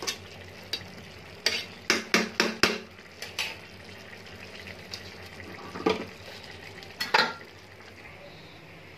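A spatula stirring and scraping polao rice in a metal pan: a run of scrapes and knocks in the first three seconds and two more near 6 and 7 seconds. Under them runs a steady sizzle of the rice simmering in its liquid.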